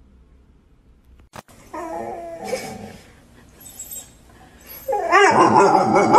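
Dog crying in two stretches of pitched, wavering calls: a shorter one about two seconds in and a louder, longer one near the end.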